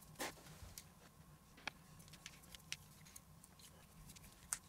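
Faint, scattered clicks and light scrapes of a small screwdriver backing out the tiny screws of an RC truck differential's metal case, the loudest click about four and a half seconds in.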